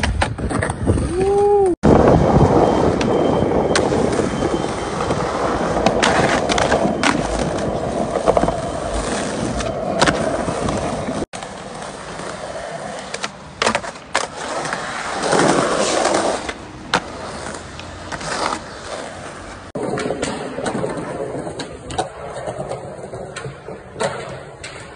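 Skateboards rolling on concrete and stone paving, with repeated sharp clacks of tails popping and boards landing tricks.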